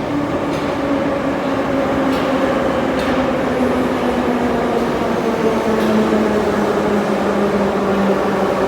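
Minsk metro train running through the station with its traction motors whining, the tones slowly falling in pitch and the sound growing slightly louder. A few faint clicks from the wheels on the rails stand out.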